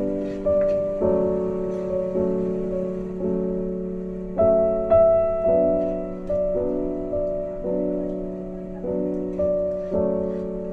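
Background piano music: slow, soft chords, a new one struck about once a second and left to ring away.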